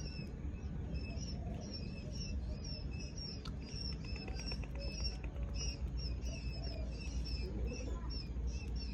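Short high chirps repeated about twice a second, over a steady low hum.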